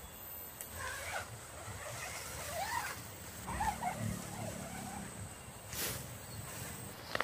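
Nylon dome tent handled as its door flap is opened, with fabric rustling, a brief hiss about six seconds in and sharper clicks near the end, over outdoor background with faint wavering high sounds and a steady thin whine.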